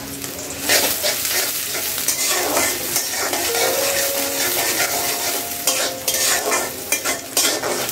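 Chopped onions sizzling in hot oil in an aluminium karai, stirred and scraped against the pan with a metal spatula. The sizzle and the scraping pick up about a second in.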